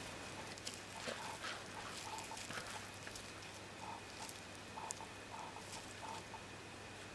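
Faint rustling, scratching and small clicks of plastic rope being handled and knotted, over a low steady hum, in a dry room with no echo.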